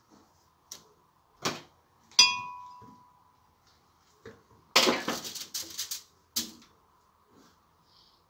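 Kitchen handling sounds while bananas are peeled into a glass blender jar: a few light knocks, a bright ringing clink about two seconds in, and a second or so of rustling and scraping around the middle. A faint steady whine sits underneath.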